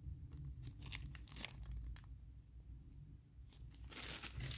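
Thin clear plastic bag crinkling in the hands as a miniature inside it is handled, in short scattered crackles that die down briefly in the middle and pick up again near the end.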